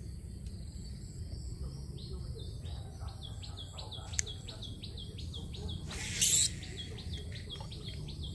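A bird calls in a rapid series of short, falling chirps, about four a second, starting a couple of seconds in, over a steady low rumble. A sharp click comes about four seconds in, and a brief loud rush of noise about six seconds in.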